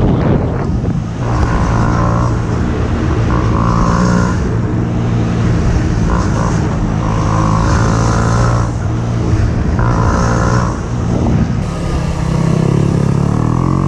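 KTM Duke 125's single-cylinder engine running while the bike is ridden, its revs climbing and easing off several times.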